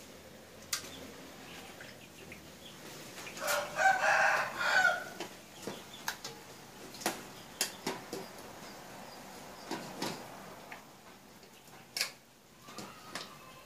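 A rooster crows once, a single long crow about three and a half seconds in. Around it come scattered sharp clicks and knocks as snail shells are handled in an aluminium bowl.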